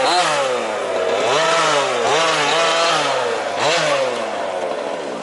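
Small two-stroke petrol engines of 1/5-scale RC cars revving up and down repeatedly as they race, easing away near the end.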